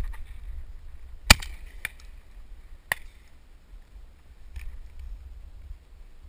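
Shotgun shots: one loud sharp report about a second in, then two lighter cracks within the next two seconds and a faint one later, over wind rumbling on the microphone.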